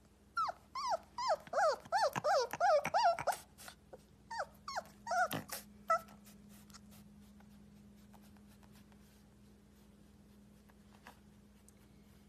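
A young husky-type puppy gives a quick run of short, whining yips, about three a second, each bending up and then down in pitch: a puppy's try at howling. A few more spaced-out yips follow before it falls quiet about six seconds in.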